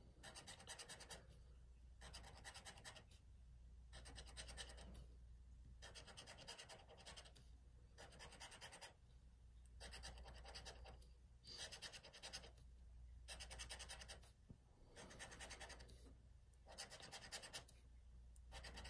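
Faint scraping of a scratch-off lottery ticket's coating under a hand-held metal scratching tool. It comes in repeated strokes about a second long, each followed by a short pause.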